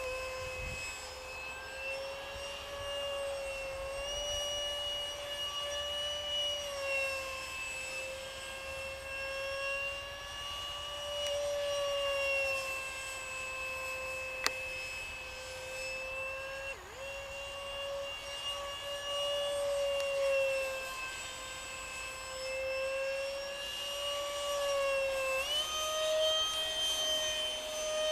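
64 mm electric ducted fan of an RC F-35 model jet in flight: a steady high whine that wavers slightly in pitch as the model flies around, and rises a step in pitch near the end.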